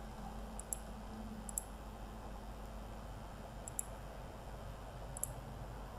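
Four sharp computer mouse clicks, spaced out over several seconds, against a faint steady background hum.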